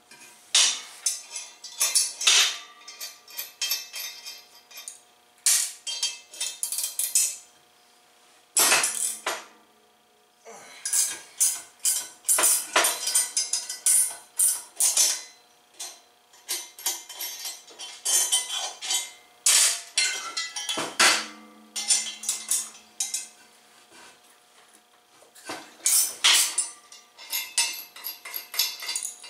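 Metal tools and loose bolts clinking and clattering in irregular bursts as the bolts holding a welded stainless turbo flange to an aluminium purge block are broken free and taken out, the clanks ringing briefly on the steel table.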